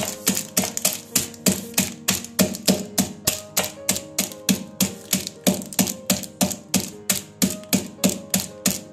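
Almonds in a plastic bag being pounded with a khalbatta pestle on a stone counter to crush them, a quick steady run of sharp knocks about three a second. Background music with changing notes plays underneath.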